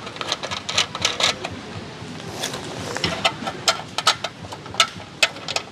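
Many sharp clicks and knocks at an irregular pace, like hard objects being handled and set down. They come in two clusters: one in the first second and a half, then from about two and a half seconds to the end.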